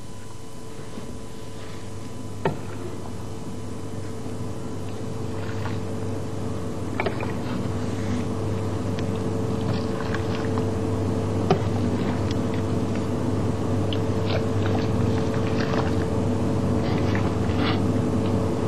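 Dark stock being strained through a steel chinois, a ladle pressing it through while the liquid runs into the pot below, with a few light metal clinks of ladle on strainer. The running noise grows slowly, over a steady low hum.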